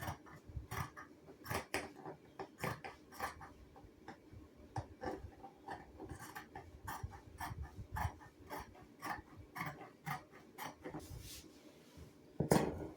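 Scissors snipping through padding material: a string of short, irregular snips, about two or three a second, with a louder thump near the end.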